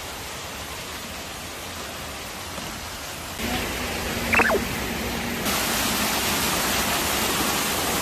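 Steady rush of a mountain stream running over a small rocky cascade. It grows louder about three and a half seconds in, and brighter again about two seconds later. A short pitched call rises and falls about four seconds in.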